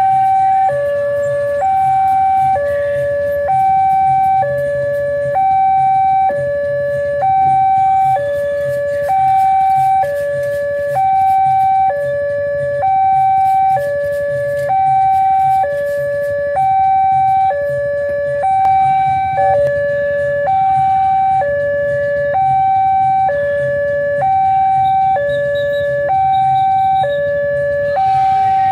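Railway level-crossing warning alarm sounding its electronic two-tone hi-lo signal, switching between a higher and a lower pitch a little under once a second. It means the barrier is down and a train is approaching.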